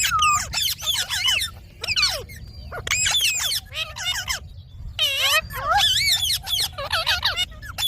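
Indian ringneck parakeet chattering and mimicking speech: a quick run of short, high calls that swoop up and down in pitch, with a brief pause a little past four seconds in.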